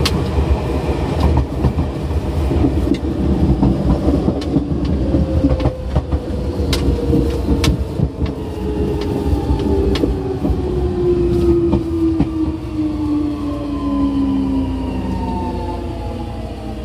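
Seibu 6000 series electric train running, with the whine of its Hitachi GTO-VVVF inverter. From about a third of the way in, several tones slide steadily down in pitch as the train slows. Irregular clicks of the wheels over rail joints sound through the running noise.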